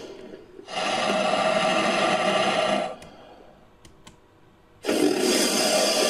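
Made-up creature sound effect for a shelled snake, built from titanoboa and crocodilian recordings: two long hiss-like calls of about two seconds each, the first about a second in and the second near the end.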